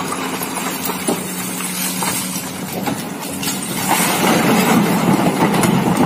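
Komatsu hydraulic excavator's diesel engine running with a steady hum, over scattered knocks and clatter of rock. About four seconds in, a louder rush of falling rock comes as a bucketload is dumped into a dump truck bed.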